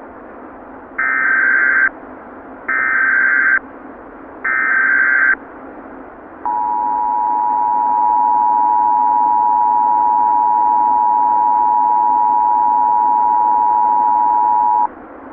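Emergency Alert System tones over a steady radio hiss: three short bursts of SAME data header tones, each just under a second, then the EAS two-tone attention signal, a steady dual tone held for about eight seconds before cutting off.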